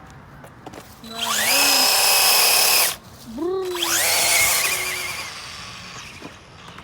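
Electric motor of a fast RC car whining as it spools up twice to a high steady pitch. The first run starts about a second in and cuts off sharply; the second climbs again and then fades out.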